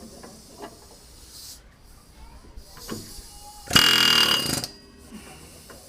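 Pneumatic air hammer firing in one short burst of about a second, a little past the middle, hammering at a broken wheel stud to drive it out of the wheel hub. A few light metal knocks come before it.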